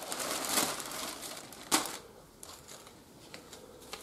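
Clear plastic bag crinkling and rustling as a shirt is pulled out of it. There is one sharp crackle just before halfway, then fainter rustles.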